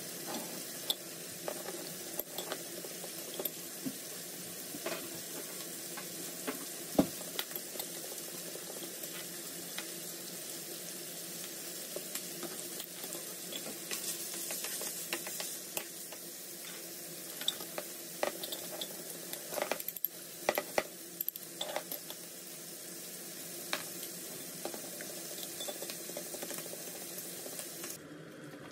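Pancetta slices sizzling steadily in a frying pan, while a fork clinks against a ceramic bowl beating eggs with grated cheese and pepper. The clinks are scattered throughout and come in quick clusters about two-thirds of the way through, with one sharper knock early on.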